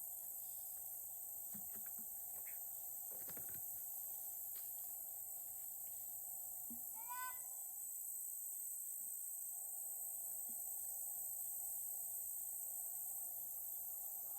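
Steady high-pitched insect chorus, with one short pitched call about seven seconds in.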